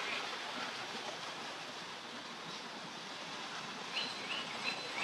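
Steady hum of distant street traffic, with a few short, high, rising chirps about four seconds in.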